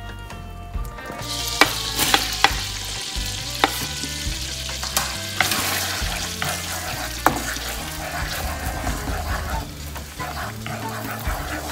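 Minced garlic sizzling in melted butter and olive oil in a nonstick wok, the sizzle starting about a second in, while a wooden spatula stirs it with sharp taps against the pan.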